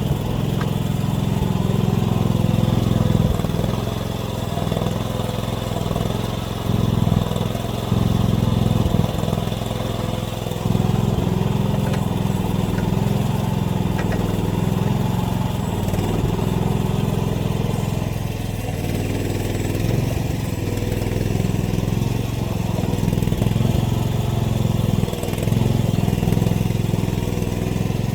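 AGT mini excavator's small engine running steadily, its loudness rising and falling every few seconds as the machine works.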